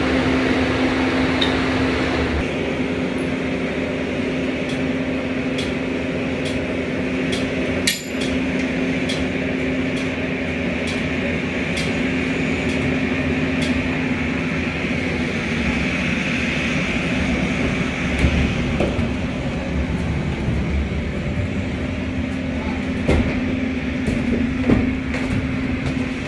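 Manual pallet jack being worked in a truck trailer: sharp metallic clicks and knocks from its handle and wheels, spaced irregularly, over a steady low hum.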